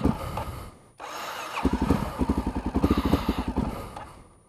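Honda XR650L single-cylinder engine in two cold-start attempts, each a fast run of even pulses. A short attempt comes first, then after a brief pause a longer one that fades out near the end without catching.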